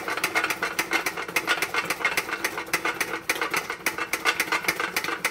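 Boiled potatoes being shaken in a perforated stainless-steel colander set in a pot, rattling and knocking against each other and the metal several times a second. They are tossed to rough up their surfaces before roasting.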